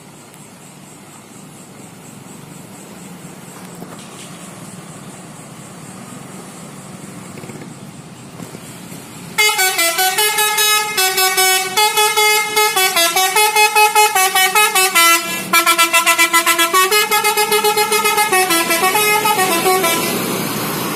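Bus 'telolet' multi-tone musical horn playing a melody. It starts abruptly about nine seconds in, the tones stepping between pitches in quick stuttering pulses for about ten seconds before fading. Before it, a low traffic rumble grows steadily louder.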